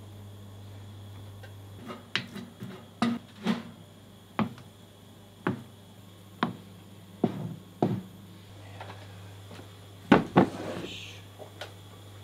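Kitchen clatter: about a dozen irregular sharp knocks and clinks of utensils and dishware, the two loudest close together near the end, over a steady low hum of kitchen equipment.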